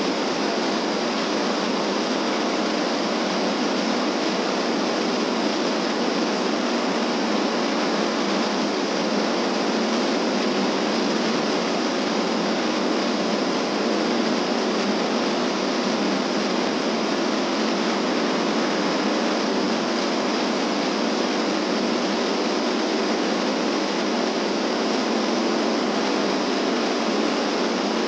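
Small waterfall pouring steadily over boulders into a rocky mountain stream: an even, unbroken rush of water.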